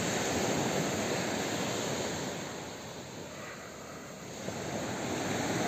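Sea waves breaking and washing on the shore. The wash eases off about halfway through and builds again near the end.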